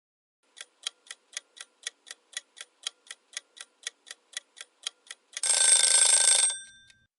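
Countdown timer's clock-tick sound effect, about four ticks a second, ending in a loud alarm bell that rings for about a second and fades out as the two minutes run out.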